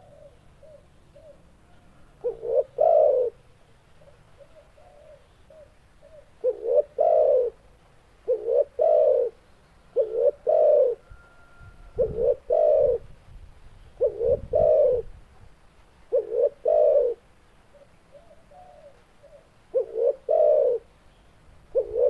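Spotted dove (tekukur) cooing over and over. The loud calls come about every two seconds, each a short note or two followed by a longer coo. Softer cooing runs in between.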